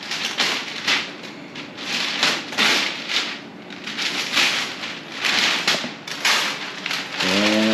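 Masking paper and tape being peeled off a freshly painted car body: an uneven run of ripping, crinkling paper strokes, about two a second. A short voiced sound comes in near the end.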